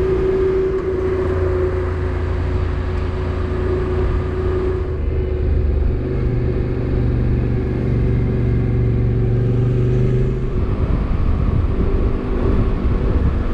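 Motorcycle engine running steadily under way, its pitch dropping to a lower note about five seconds in.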